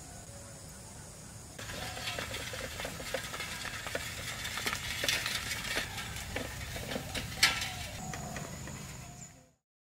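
Wooden bullock cart with spoked wheels rolling along a dirt road: an irregular run of clicks and knocks from the wheels and frame, starting about a second and a half in, with one sharp loud knock near the end before the sound cuts off.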